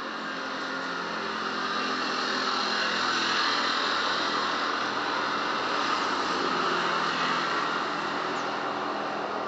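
A motorcycle passing along the street: a steady engine and road noise that builds to its loudest about three seconds in, holds, then slowly fades.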